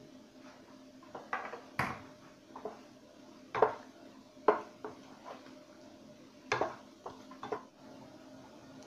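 A spoon stirring minced meat and tomato purée in a large non-stick pot, knocking against the pot's side several times. Near the end a glass lid is set on the pot with a short clatter.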